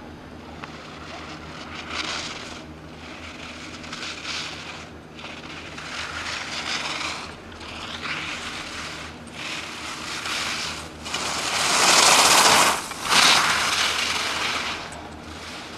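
Ski edges carving and scraping on hard-packed snow in repeated swells, one with each gate turn. The loudest scrape comes about twelve seconds in.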